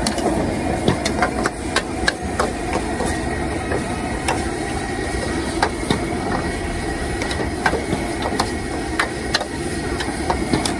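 Stir-frying in a wok over a gas burner: a steady burner roar under irregular metal clanks of a spatula striking and scraping the wok, about one or two a second.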